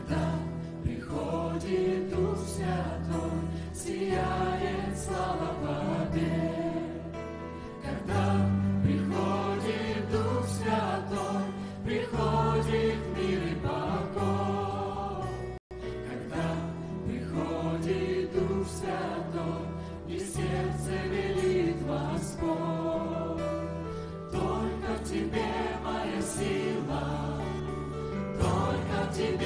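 A church choir singing a worship song with a worship band behind it. The sound cuts out for an instant about halfway through.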